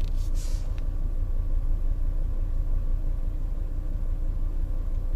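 VW T4 van idling: a steady low rumble with a faint constant hum, and a short swishing noise in the first second.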